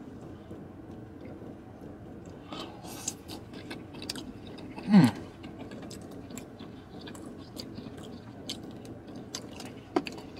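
A man chewing a mouthful of creamy rasta pasta, with small wet mouth and lip clicks over a steady low hum in the car cabin. About five seconds in comes a brief voiced 'mm' that falls in pitch, the loudest sound here.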